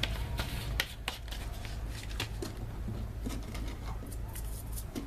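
Hands handling the parts of a disassembled angle grinder: scattered light clicks and scrapes of metal and plastic pieces, over a steady low hum.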